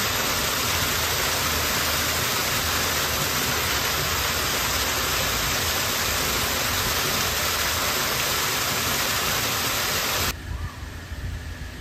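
Water jets pouring into a swimming pool, a steady loud splashing that cuts off sharply about ten seconds in, leaving a fainter low rumble.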